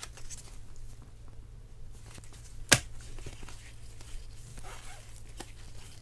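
Trading cards handled and shuffled in gloved hands: soft rustling and sliding of card stock, with one sharp click about two and a half seconds in, over a low steady hum.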